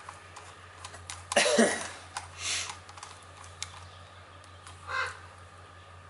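Screwdriver working the carburetor mounting screws on an Echo chainsaw: small irregular clicks and scrapes of the metal tool on the screws and housing. A louder sound with a falling pitch comes about a second and a half in, and shorter bursts near the middle and end.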